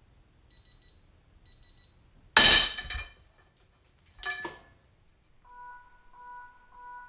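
Two quick runs of short electronic beeps, then a loud sharp metallic crack with ringing about two and a half seconds in as the Husky 3/8-inch drive ratchet's anvil shears off under about 259 ft-lb of torque. A shorter metal clang follows about two seconds later, and three longer, lower beeps sound near the end.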